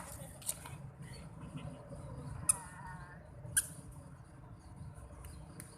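A cat mews once, briefly, about halfway through, among a few sharp clicks and taps.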